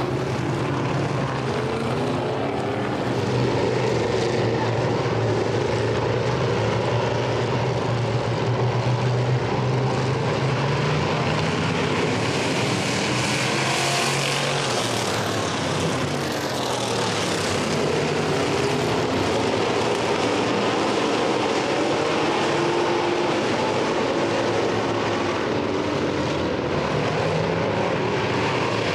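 Engines of several coupe-bodied classic-class dirt-track race cars running at speed around the oval. The pitch rises and falls as cars pass, with a clear falling pass-by about halfway through.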